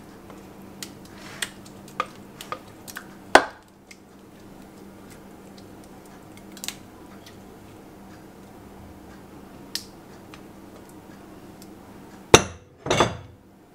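Silicone spatula scraping and tapping against a glass mixing bowl as a thick creamy mixture is emptied into a crockpot, with a run of light taps in the first few seconds and a few more later. Near the end come two loud knocks as the glass bowl is set down on the counter.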